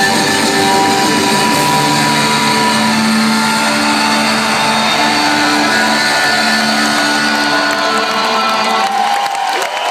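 Live rock band's closing sustained chords, heavily distorted by an overloaded phone microphone. The music stops about nine seconds in and crowd cheering starts.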